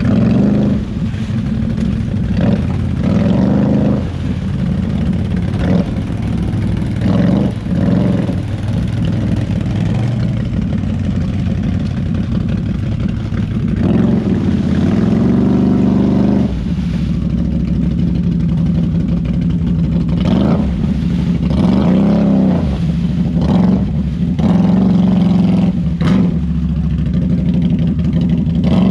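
ATV engine running on the trail, its revs rising and falling again and again as the throttle is worked.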